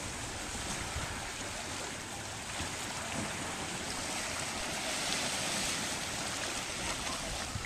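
Small lake waves lapping at the shore with wind on the microphone: a steady hiss with a low, fluttering rumble.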